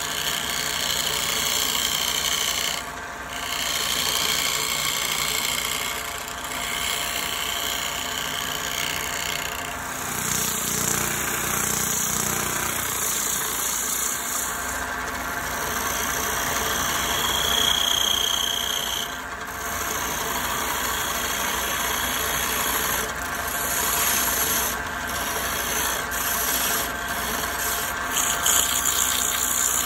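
Wood lathe running while a turning tool scrapes the spinning wooden piece, then sandpaper and a handful of wood shavings rub against it to smooth and burnish it. The rasping rubbing is steady, with a few short dips when the tool or paper lifts off.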